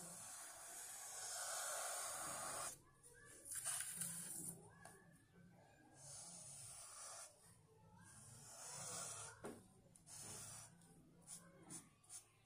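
Black marker pen drawing on paper: long scraping strokes of one to three seconds with short pauses between, then a run of short quick strokes near the end.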